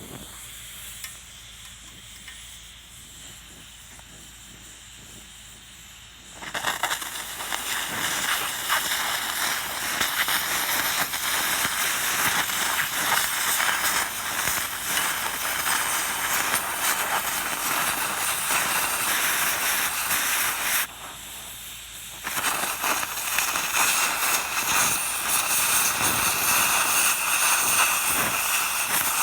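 A loud, steady hiss, like air or spray under pressure, starting about six seconds in, stopping briefly for about a second and a half near the twenty-one-second mark, then resuming.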